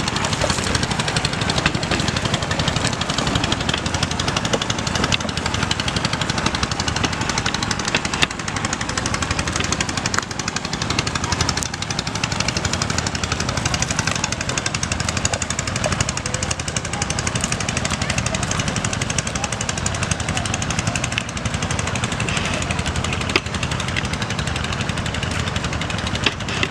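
A small engine running steadily, with a fast rattling beat.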